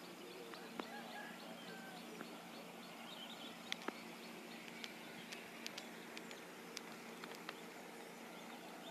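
Faint outdoor ambience with birds chirping softly, a low steady hum underneath, and a few short sharp clicks scattered through it.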